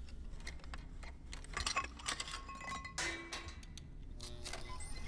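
Sharp metallic clicks and clinks of a tool and fingers working a metal lock and control knob, with a few short electronic beeps about two to three and a half seconds in, over a low steady drone.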